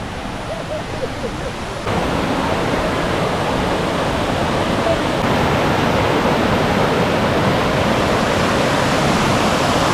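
Rushing water, a steady loud wash that gets louder after about two seconds.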